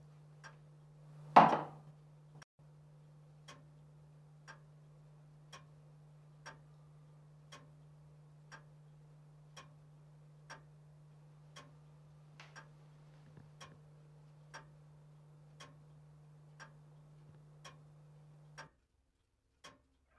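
Clock ticking about once a second over a steady low hum, with a brief loud whoosh about a second and a half in. The ticking and hum cut off together near the end.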